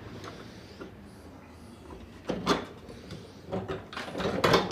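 Metal knocks and scraping from a thick iron bar being set and worked in an improvised bench vise. They come in a few short clusters in the second half, the loudest near the end.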